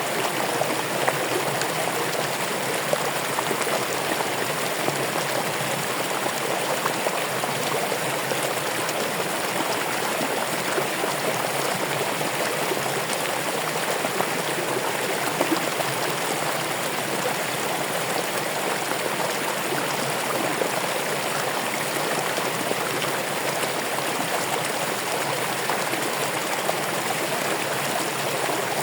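Running water flowing steadily, an even rushing sound with small splashes throughout.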